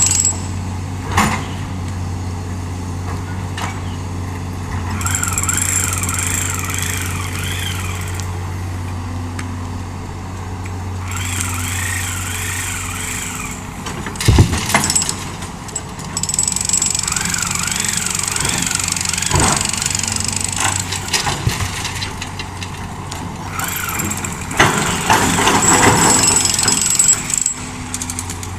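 Hydraulic excavator working: its diesel engine runs steadily with a low hum, broken by a few sharp knocks, the loudest about fourteen seconds in, and stretches of a higher wavering whine.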